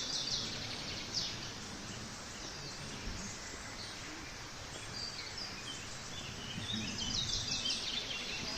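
Songbirds chirping in quick high trills, at the start and again near the end, over a steady outdoor rushing hiss.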